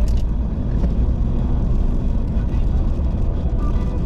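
Steady road and engine noise heard from inside a car's cabin at highway speed: a low rumble with an even hiss over it.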